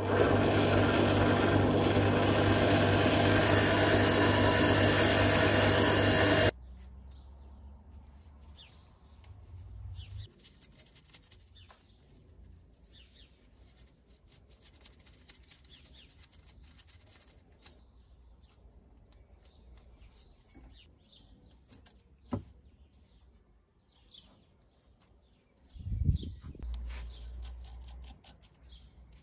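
A bench drill press running with a small wheel spinning in its chuck, loud and steady with a motor hum, cutting off abruptly after about six seconds. Then faint clicks and taps of small metal parts being handled, with a low thump near the end.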